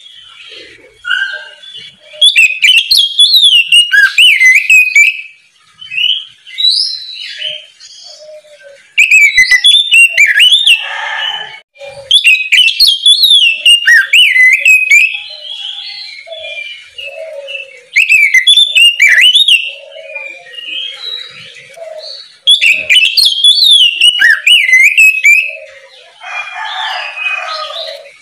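Oriental magpie-robin (kacer) singing: loud, varied phrases of rich gliding whistles and rapid high trills come in repeated bursts a few seconds long, with softer, lower notes between them.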